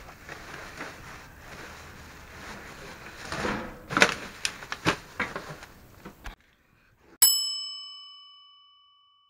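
Rustling and clattering of cloths, bags and household clutter being rummaged through, with a few knocks. The sound cuts off about six seconds in, and a second later a single bright bell ding rings and fades over about two seconds: an added sound effect for finding the wok.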